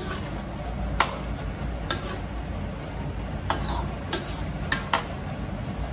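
A steel ladle stirring mutton curry in a metal karahi, clinking against the pan about six times at uneven intervals over a steady low hum.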